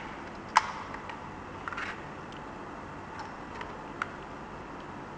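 Light plastic clicks and taps from a small plastic beer-barrel pencil sharpener being handled: one sharp click about half a second in, a short scratchy rattle near two seconds, then a few fainter ticks, over a steady hiss.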